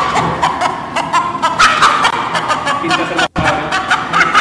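Crowd shouting at a cockfight arena, heard through the fight's live-stream audio, with a brief sharp break in the sound a little past three seconds in.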